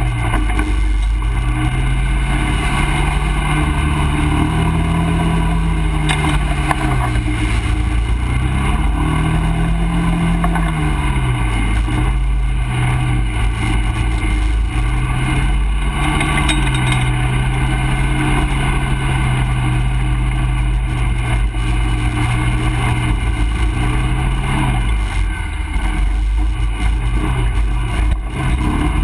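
ATV engine running as the quad rides a rough, muddy trail, its pitch rising and falling with the throttle: it revs up twice in the first ten seconds, holds steady, then eases off near the end. A heavy, constant low rumble runs underneath.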